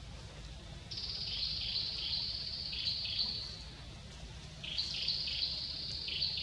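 A high-pitched trill from a forest creature starts about a second in and runs for nearly three seconds, then comes again near the end, over a steady low background rumble.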